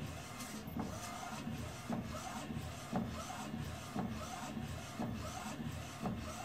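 LED UV printer printing its white-ink layer: the print-head carriage shuttles back and forth over the bed, with a steady run and a short knock about once a second.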